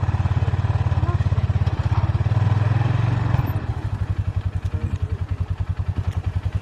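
Polaris ATV engine running at idle close by, a steady low throb with a fast, even pulse that becomes more distinct in the second half.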